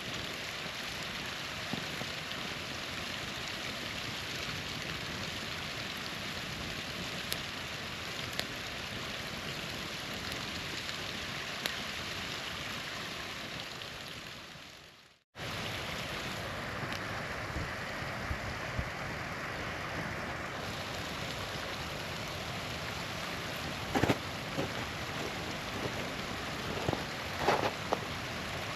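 Small waterfall rushing steadily with a campfire crackling over it, a few louder pops of the fire near the end. About halfway through, the sound fades briefly to silence and cuts straight back in.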